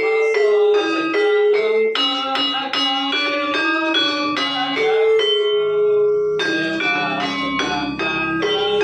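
Javanese gamelan-style music: a quick run of struck metallophone notes, each ringing with steady, bell-like tones, with a low rumble joining them from about six seconds in.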